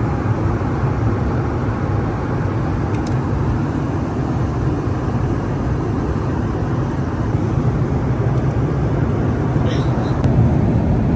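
Jet airliner cabin noise in flight: a steady low rumble and rush of engines and airflow.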